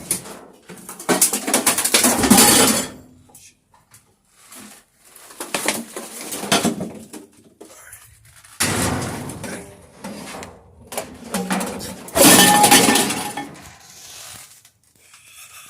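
Junk clattering and scraping inside a metal dumpster as a microwave is shifted and hauled up, in several loud bursts of rattling and knocking with short pauses between.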